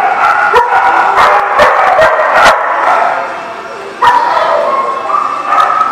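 Dogs yipping and whining in rough play, a string of high, wavering cries broken by short sharp clicks in the first two and a half seconds, with a fresh outburst about four seconds in.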